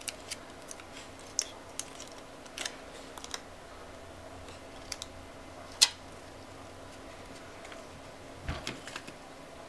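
Scattered small clicks and crinkles of foil tape being peeled and pressed onto the metal frame of an LCD panel, with one sharper knock a little before six seconds in and a short cluster of handling noises near the end. A faint steady hum runs underneath.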